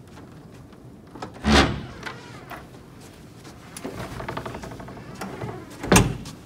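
Two loud bangs about four and a half seconds apart, the second just before the end, with quieter knocks and handling noise between.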